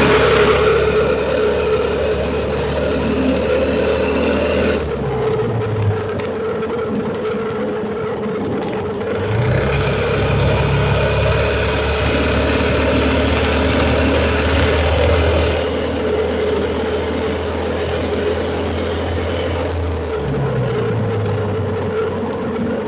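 Small engine of a motorized bicycle running under way. Its note drops about five seconds in, rises again shortly before the ten-second mark, and drops once more near the end, as the throttle is eased and opened.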